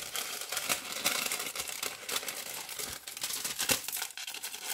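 Thin decoupage paper rustling and crinkling as it is handled and cut with scissors: an uneven run of crackles and small snips.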